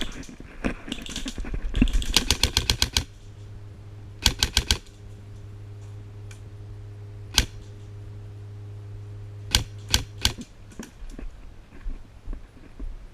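Airsoft guns firing: a rapid full-auto burst of about a dozen shots, a shorter burst of about five, then a few single shots spaced out.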